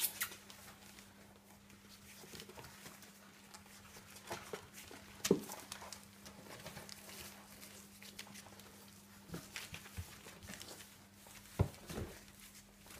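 Border terrier puppies moving about on newspaper: scattered light rustles and taps of small paws and bodies on paper, a few sharper ones about five seconds in and again near the end.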